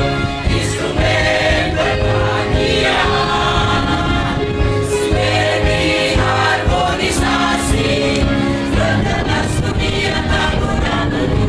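Mixed choir of men and women singing a march song together.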